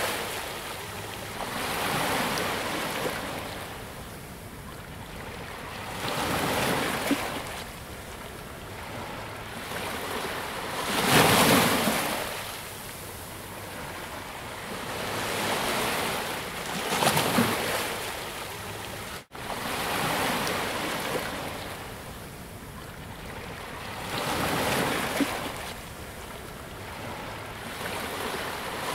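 Ocean surf: waves break and wash up the shore, each surge swelling and fading every four to six seconds over a steady wash. The sound drops out for an instant about two-thirds of the way through.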